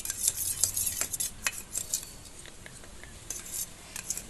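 A spoon stirring and clinking against a small dish, mixing garlic juice with honey: a quick run of scrapes and taps, a short lull, then a few more taps near the end.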